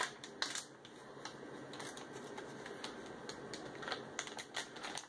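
Plastic candy pouch being pulled open and handled, its wrapper crinkling in a run of irregular sharp crackles.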